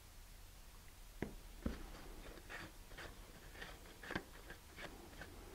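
Faint handling noises of a wooden model rocket glider being held and turned: scattered light clicks and taps starting about a second in, the first two knocks the sharpest.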